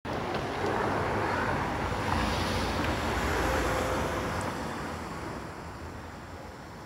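Street traffic noise: a road vehicle passing, loudest in the first few seconds and fading away over the last two.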